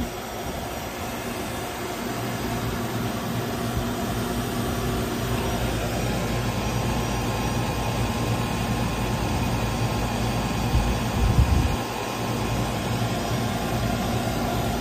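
Refrigeration vacuum pump running steadily with a constant hum while it evacuates a residential heat pump through a single hose, the system pulled down to around 2,500 microns. A couple of brief low thumps come about eleven seconds in.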